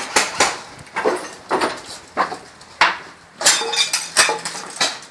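A quick, irregular series of sharp knocks and clatters, about a dozen in five seconds, the strongest about three seconds in.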